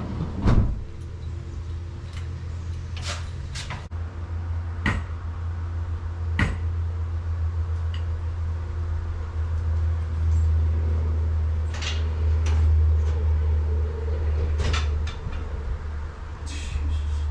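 Sharp metal clicks and clanks of mailbox doors, covers and locks being handled, a dozen or so scattered knocks with the loudest about half a second in, over a steady low hum.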